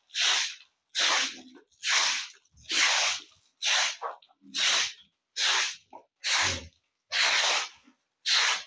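A broom swept in quick, regular strokes across a wet concrete floor to wash it down: about ten swishes, one roughly every second.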